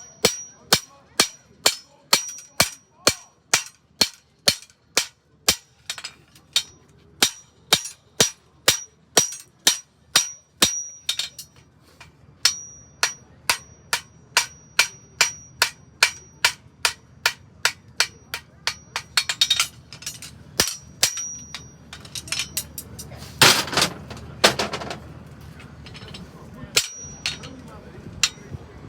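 Blacksmith's hammer striking a horseshoe on the anvil, about two blows a second, each with a high anvil ring, as the farrier hand-forges a Shire horse shoe. The hammering pauses briefly near the middle, and a loud hiss-like rush lasting about a second and a half breaks in about two-thirds of the way through.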